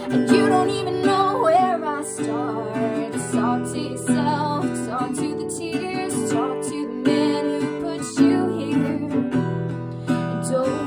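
A woman singing with her own strummed acoustic guitar accompaniment, the voice in phrases over steady chords.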